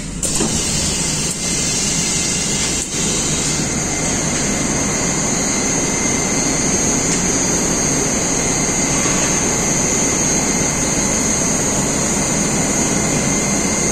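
Moscow Metro 81-760 train standing at the platform, its onboard equipment running with a steady hum and a constant high whine. A few short knocks come in the first three seconds.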